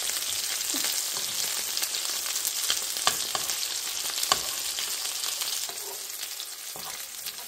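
Food sizzling in a hot pan, a steady frying hiss with a few sharp knocks of a utensil against the pan as it is stirred; the sizzle eases a little near the end.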